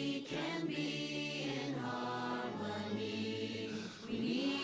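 A chorus of voices singing together in slow, long held notes, with a brief break about four seconds in.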